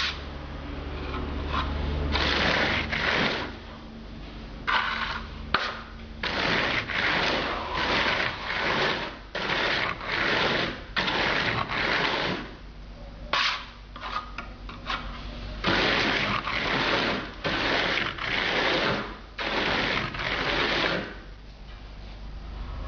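Plastic float rubbing over freshly applied mineral decorative render in repeated rasping strokes, about one every half second to a second with short gaps, as the grains drag through the coat to cut the grooved texture. The strokes pause briefly a few times, most clearly about two-thirds of the way in and near the end.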